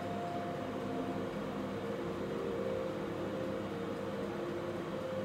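A steady mechanical hum with several held tones that shift slightly in pitch over the few seconds.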